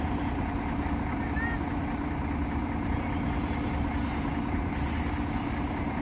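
Diesel engine of a heavy UD truck running at a steady low rumble. A sharp hiss of air starts near the end and lasts about a second.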